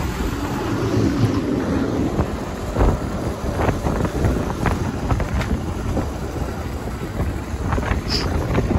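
Wind buffeting a camera microphone on a moving motorcycle, a steady rumble and hiss with scattered short knocks, the bike's running heard underneath.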